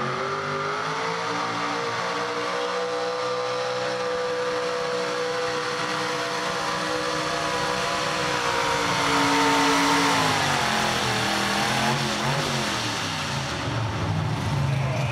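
Mini two-wheel-drive pulling truck's engine, exhausting through open hood stacks, revving up as it launches with the pulling sled and holding high rpm under load. About ten seconds in the revs fall away as the pull ends, dropping to a low idle near the end.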